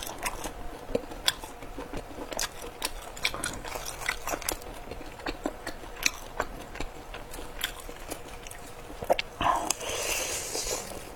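Close-up crunching and chewing of crispy pork intestines: many short, sharp crisp crunches, with a louder, longer stretch of crunching near the end.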